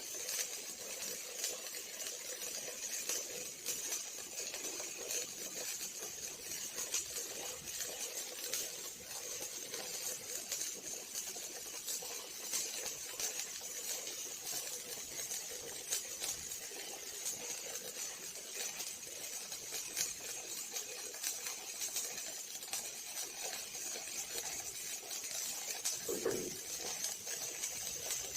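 Robotic arc welding: the arc crackles steadily with a dense run of small pops, with a brief low tone near the end.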